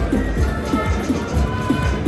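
Slot machine game music: an electronic tune with a steady beat and short pitched notes.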